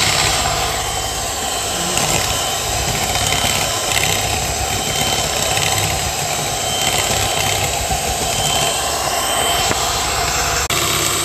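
Electric hand mixer running steadily, its twin beaters whisking eggs and sugar in a plastic bowl.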